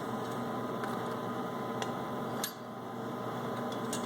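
A few light, sharp metal clicks, about one a second with the sharpest about two and a half seconds in, as bolts are started by hand into a rotary vane compressor's head plate, over a steady room hum.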